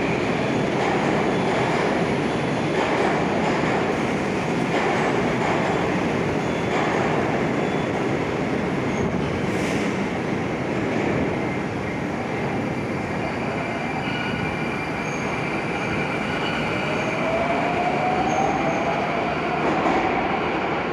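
Moscow metro Oka-type train (81-760/761) running at the platform: a steady, loud rumble of wheels and running gear, with a whine rising in pitch over the last few seconds.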